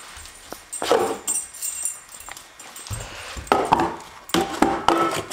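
Dogs vocalizing in several short calls, most of them in the second half, with metal dog bowls clinking as they are picked up.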